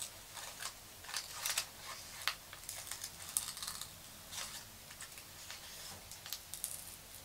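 Small scissors snipping short slits into folded paper, a scatter of faint, crisp snips at an irregular pace.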